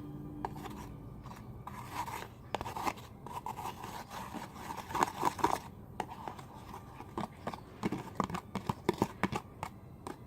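A utensil scraping and stirring in a container of frozen body-wash slime, irregular scrapes and clicks as the stiff, frozen mixture is worked.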